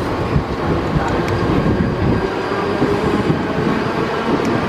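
Passenger train rolling past close by: a loud, steady rumble of wheels on rail with a faint steady whine and a few sharp clicks.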